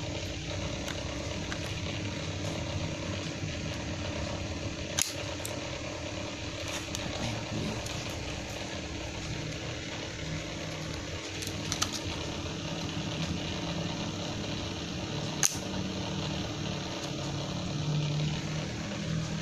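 Small sharp clicks of a DDR3L laptop RAM module being handled and pressed into its memory slot, a few times over about ten seconds, over a steady low hum.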